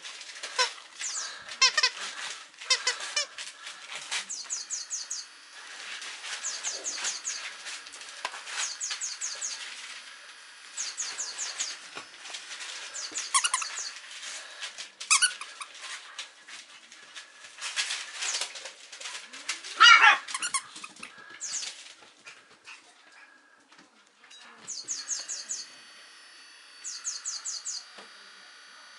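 Squeaky plush dog toys squeaking again and again as a puppy plays with them, with the loudest squeak, falling in pitch, about twenty seconds in. Short, rapid, high chirping trills recur every few seconds in the background.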